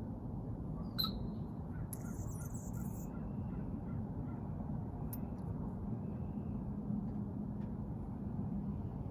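Baldor bench buffer running steadily with a low hum, with a few brief squeaks and clicks and a short burst of hiss about two seconds in as work is held against the wheel.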